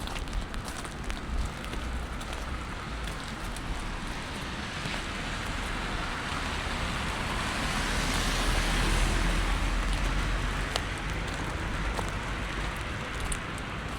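A car passing on a wet road, its tyre hiss swelling to a peak about eight or nine seconds in and then fading, over a steady patter of rain.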